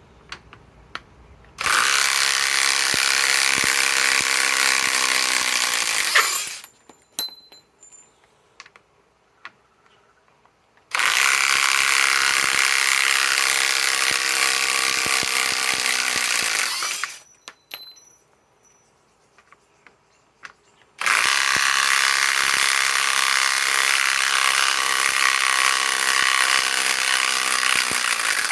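Ridgid R8721B half-inch cordless right-angle impact wrench hammering lag bolts out in reverse, three runs of about five to six seconds each, its pitch falling away as the trigger is let go. Light clicks between the runs.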